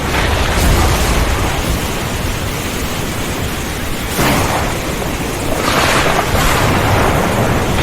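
Thunderstorm: steady rain hiss under low rolling thunder, with louder thunder cracks about four seconds in and again around six seconds.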